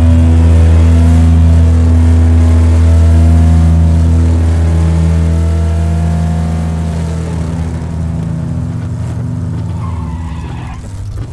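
A motor vehicle's engine running steadily with a loud low drone, and a higher whine that wavers up and down in pitch. It eases off somewhat over the last few seconds.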